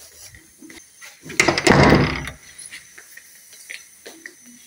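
A brief rushing, rubbing noise about a second and a half in, lasting about a second, from the phone being carried and jostled. Faint scattered clicks around it.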